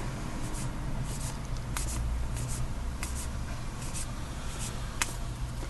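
Baseball trading cards being flipped through one by one, each card giving a short crisp swish or snap, about one every half second to second, over a steady low hum.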